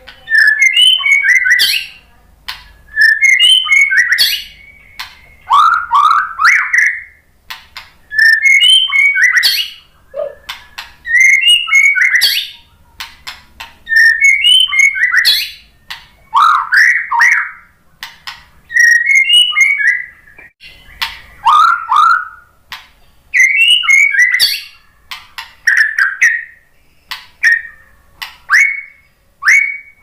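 White-rumped shama (murai batu) singing: loud phrases of rapid whistled notes, sweeping down in pitch and mixed with sharp clicks, a new phrase every two to three seconds.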